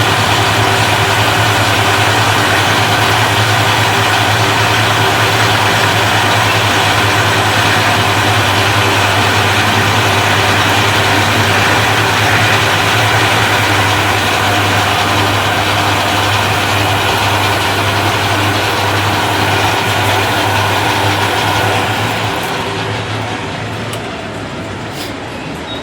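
Heavy-duty lathe running: a steady low hum under a dense hiss, easing off and losing its high hiss near the end.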